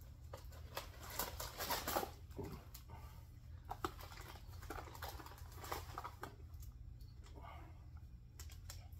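Plastic mailer bag and small packets crinkling and rustling as they are opened and items are pulled out, in scattered short crackles, over a low steady hum.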